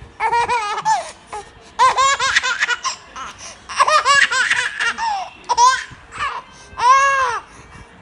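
A baby laughing in about five short bouts of high-pitched laughter. The last bout, near the end, is a single drawn-out note that rises and falls.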